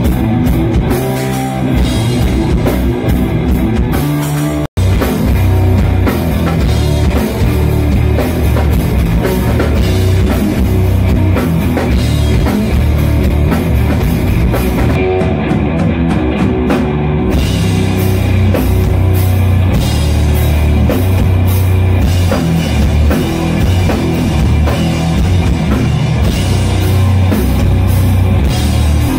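Stoner doom metal band playing live: loud, heavy distorted guitars with a thick low end over a drum kit. The sound cuts out for an instant about five seconds in.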